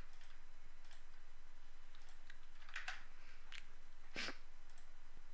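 Scattered clicks and taps on a computer mouse and keyboard, a few sharp ones with the loudest about four seconds in, over a faint, low, steady hum.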